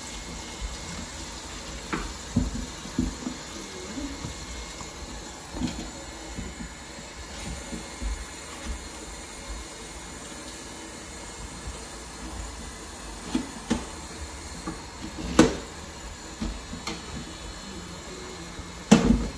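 Tap water running steadily into a stainless steel sink while plantains are peeled and rinsed under it, with scattered knocks and clunks; the loudest come about fifteen seconds in and just before the end.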